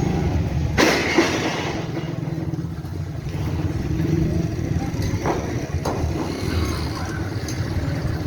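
A steady low engine or machine rumble, with a few sharp knocks about a second in and again around five to six seconds in.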